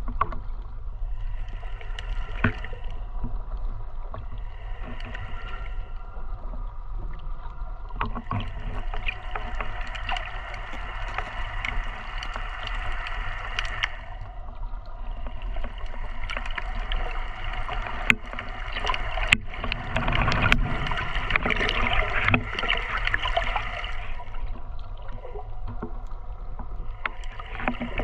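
Muffled underwater sound picked up by a submerged snorkelling camera: a steady low rumble of moving water, with swells of hiss lasting a few seconds at a time and a few sharp clicks.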